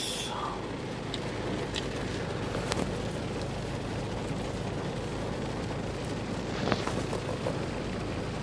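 Steady hum and hiss inside a car with its engine running, with a few faint clicks from a clear plastic dessert container and its hinged lid being handled.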